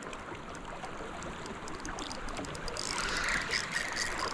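Steady rush of a river's current, with small light ticks scattered over it.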